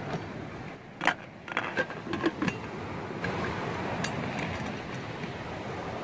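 Aluminium pressure cooker's lid being fitted and closed: a handful of sharp metal clinks and clicks in the first half. After that a steady rush of wind and surf.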